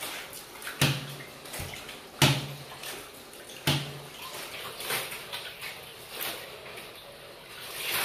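Water sloshing and splashing as clothes are washed by hand in a large steel basin. There are three sharp hits about a second and a half apart in the first four seconds, then softer irregular splashing that swells near the end as wet cloth is lifted from the water.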